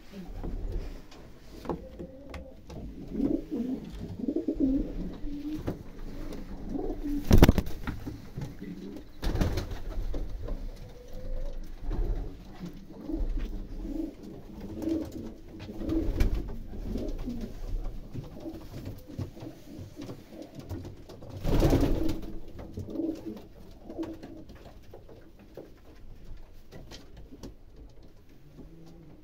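Domestic pigeons cooing, low coos repeating over and over, broken by a few sudden louder noises, the loudest about seven seconds in.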